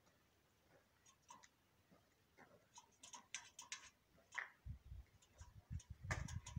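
Faint scattered ticks of a jackdaw's bill pecking at food on a metal railing, with a low rumble on the microphone starting about four and a half seconds in.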